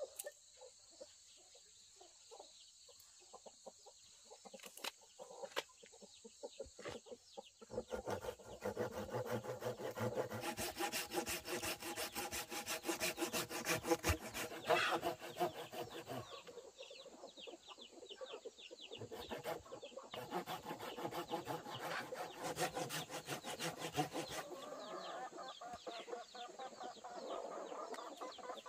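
Hand saw cutting through wood in a long run of quick, steady strokes from about eight seconds in until about twenty-four seconds in, with chickens clucking.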